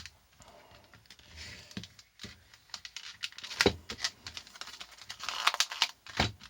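Retail packaging being worked at by hand to free a screwdriver: scattered plastic clicks and short crinkling, tearing rustles, busiest near the middle and toward the end.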